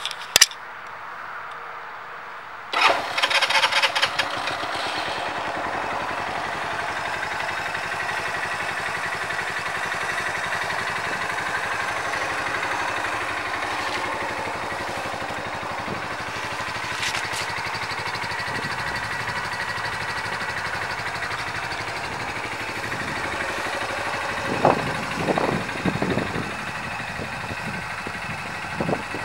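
2020 Kayo Bull 200 ATV engine starting about three seconds in, then idling steadily. It is blipped with a few short throttle revs near the end.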